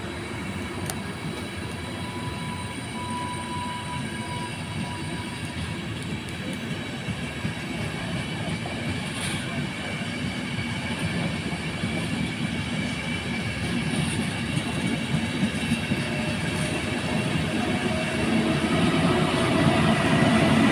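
Intercity passenger coaches rolling past on the rails: a steady rumble of wheels with a few clicks over rail joints and a brief high squeal about two seconds in. It grows louder near the end as the locomotive at the rear of the train goes by.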